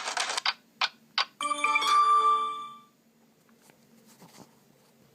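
Smartphone loudspeaker playing short message-tone previews: a rapid rattling pattern that stops about half a second in, two short blips, then a ringing chime that fades away about three seconds in.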